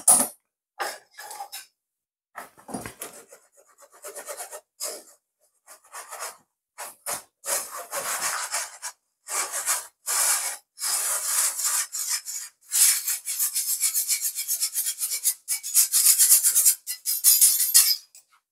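Wire whisk scraping flour through a stainless steel mesh sieve: a rasping scrape of metal wire on mesh in short strokes, sparse at first, then quick and close together over the last few seconds.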